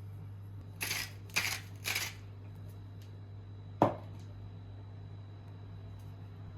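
Three short rustling strokes about half a second apart, then a single sharp knock, over a steady low hum.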